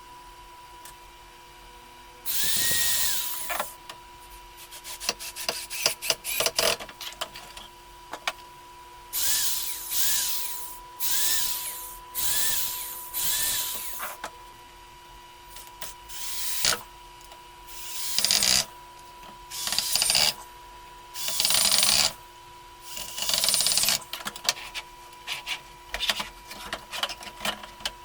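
Power drill run in short trigger bursts of about a second each, about a dozen times, its motor pitch rising and dropping with each pull. Clicks and knocks from handling the work fall between the bursts, over a faint steady hum.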